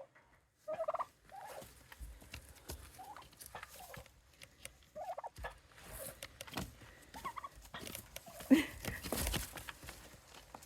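Turkeys giving short, scattered yelps and clucks, with a louder noise about eight and a half seconds in.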